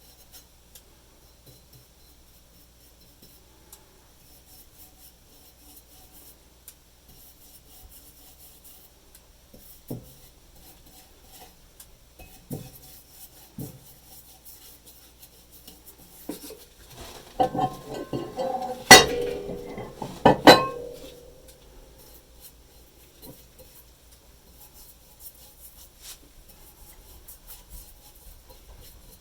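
Workshop handling of metal tools: faint rubbing and a few soft knocks, then, about two-thirds of the way through, a clatter of metal with two sharp clinks about a second and a half apart that ring briefly.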